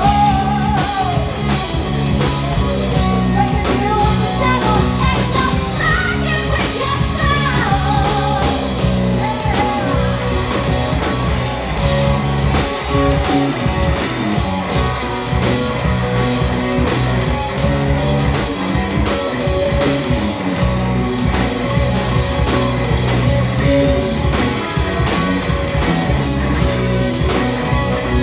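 Live rock band playing: electric guitars, bass and drums, with a woman singing in the first several seconds before the band carries on without voice.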